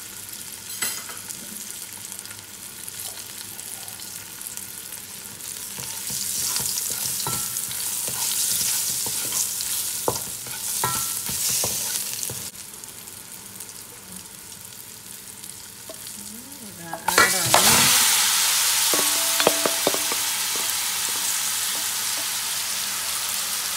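Garlic and curry powder sizzling in hot olive oil, stirred with a wooden spoon that knocks now and then on the pot. About three-quarters of the way through, the marinated goat meat is tipped into the pot and the sizzling suddenly gets much louder and stays loud.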